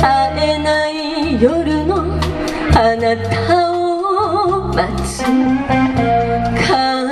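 Live pop band playing: a woman's voice singing with vibrato over electric guitar, bass guitar and a drum kit.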